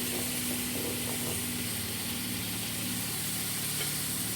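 Vegetables (broccoli with tomatoes and onions) frying in a pan, sizzling steadily, with a steady low hum underneath.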